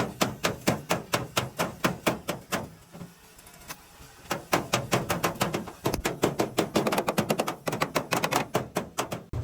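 Hammer blows on metal, about three a second, then after a pause of over a second a faster run of strikes.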